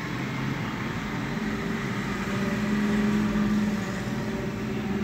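A steady low motor hum that swells about halfway through and then eases off.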